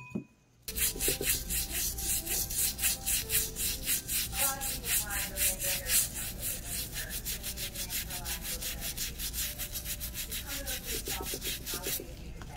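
A toothbrush scrubbing fast back and forth over the textured surface of a prop piranha, several strokes a second, to loosen dried pond scum and grime. The scrubbing starts just under a second in and stops shortly before the end.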